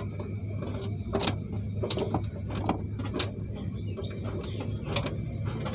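Scattered light clicks and taps at irregular times over a steady low hum.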